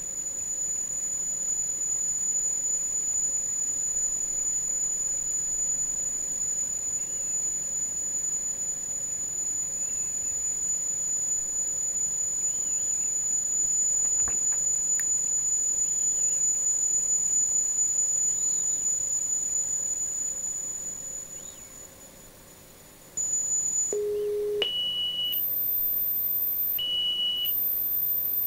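Marantz PMD520 three-head cassette deck's auto-bias calibration tones. One long, steady, high-pitched tone fades out after about twenty seconds. It is followed by a series of short steady tones at changing pitches, low, mid and very high, each lasting about a second, as the deck works through its calibration.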